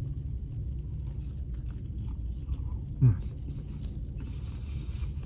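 A man chewing a mouthful of fried chicken sandwich, with one short, loud, falling 'mmm' about three seconds in, over a low steady rumble in the car.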